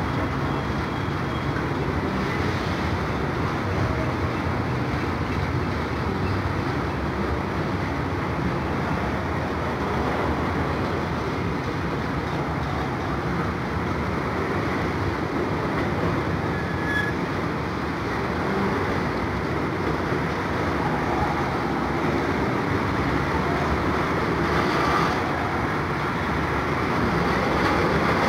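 Freight train of autorack cars rolling past, a steady, even noise of steel wheels running on the rails, growing slightly louder near the end.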